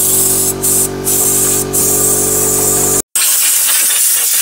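Compressed-air blow gun hissing as it blows dust and dirt off the top of an engine, the blast stopping briefly a few times. A steady hum runs underneath at first; about three seconds in, everything drops out for a moment and the hiss resumes alone.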